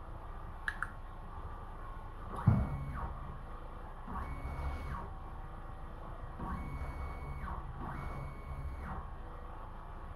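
Stepper motors of a belt-driven Core XY CNC gantry being jogged in short moves, about four times. Each move is a whine that rises in pitch, holds steady and falls away as the motor speeds up, runs and slows down. A short knock comes at the start of the first move.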